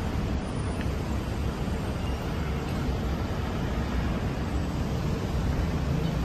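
Steady low rumbling noise with no distinct events, like outdoor street or wind ambience.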